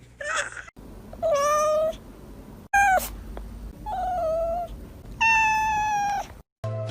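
A domestic cat meowing about five times, short and longer drawn-out meows with brief gaps between them.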